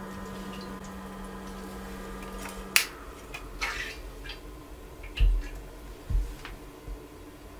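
Grainfather's pump humming steadily while it recirculates cleaning water through the counterflow chiller, stopping with a sharp click about three seconds in. A few soft clicks and low thumps follow.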